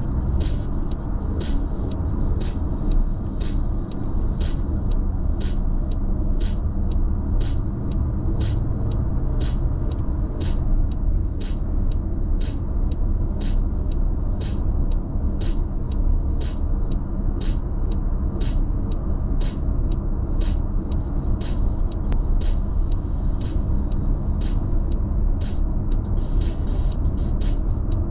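Steady low road and tyre noise inside a Mazda's cabin while cruising at freeway speed, with a light, regular tick about twice a second over it.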